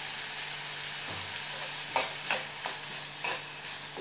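Chopped onion, tomato and capsicum sizzling in oil in a metal kadhai. From about halfway through, a metal spoon scrapes and knocks against the pan in quick repeated strokes as the vegetables are stirred.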